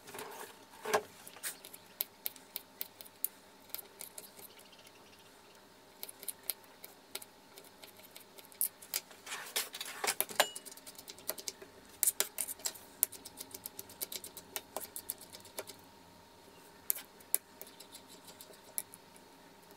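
Kitchen knife chopping garlic cloves on a thin plastic cutting board: irregular sharp taps and clicks, often in quick clusters, over a faint steady hum.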